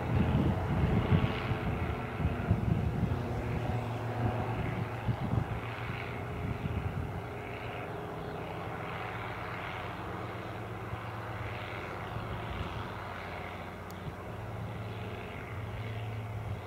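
Light single-engine propeller plane flying overhead, its engine giving a steady drone that eases slightly after the first few seconds.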